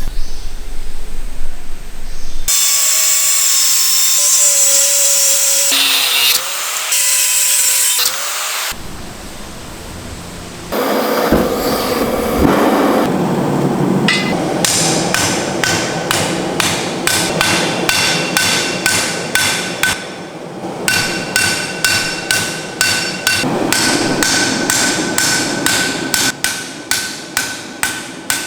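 Hand hammer forging a steel Damascus billet on an anvil: a long, steady run of blows, about two to three a second, each with a metallic ring, from about halfway on. Before that, a whining power tool runs in short spells, its pitch shifting.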